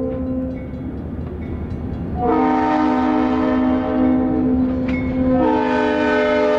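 Diesel freight locomotive's air horn blowing over the rumble of the passing train: a multi-note blast ends about half a second in, and after a short break another long blast starts about two seconds in, its chord shifting about five seconds in.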